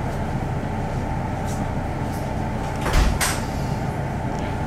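Steady running noise inside a parked electric train, with a short knock about three seconds in: a low thud and two sharp clicks close together.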